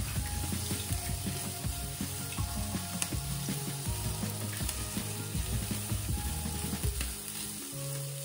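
Sliced bell peppers and onion sizzling as they sauté in oil in a non-stick frying pan, the start of a stew sauce. They are stirred with a spatula that scrapes and taps against the pan in scattered short ticks.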